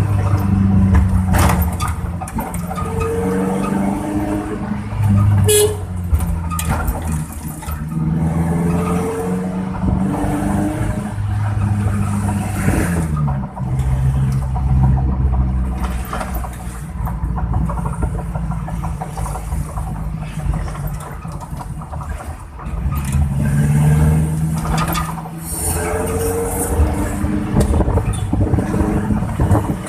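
A Suzuki Carry made to sound like a bus: a deep, growling vehicle sound whose low tones step up and down in pitch every second or so, with a few short clicks.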